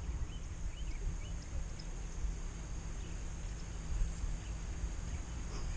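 Outdoor ambience: wind rumbling on the microphone, with a few faint bird chirps in the first second and a half and a faint steady high hiss underneath.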